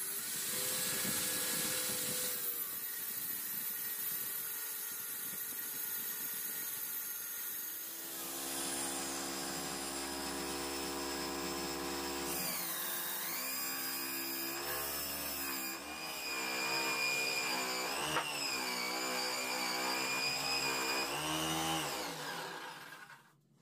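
Angle grinder with a cutting disc shaving a spinning wooden cylinder on a drill-driven homemade lathe, a dense steady grinding. About eight seconds in the grinding gives way to the whine of the lathe's drive motor, its pitch dipping and recovering several times. The sound cuts off abruptly near the end.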